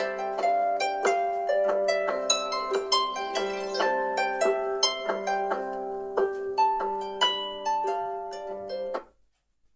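Samsung Galaxy Tab S7 FE alarm tone playing: a melody of quick notes over held low notes, which cuts off suddenly about nine seconds in.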